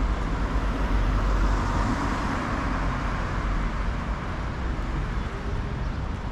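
Road traffic: a car passes close by, swelling in the first couple of seconds and then fading, over a steady low rumble of traffic.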